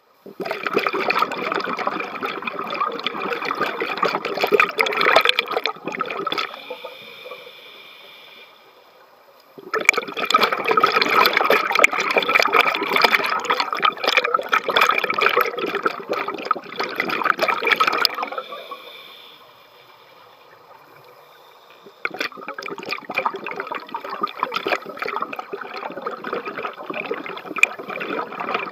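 Scuba diver's breathing heard underwater: three long bursts of exhaled bubbles from the regulator, each several seconds, separated by quieter stretches with a faint hiss as the diver breathes in.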